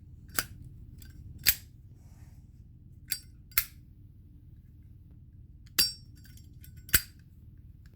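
Zippo lighter lid being flipped open and snapped shut, six sharp metallic clicks in three open-and-close pairs.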